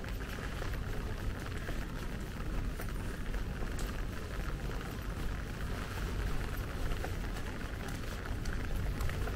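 Steady light rain falling on wet paving, with scattered drip ticks over a constant low rumble.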